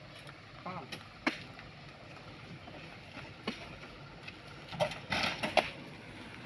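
Oil palm fresh fruit bunches being handled and loaded onto a dump truck: several sharp knocks spaced through, and a busier patch of knocks and rustling near the end.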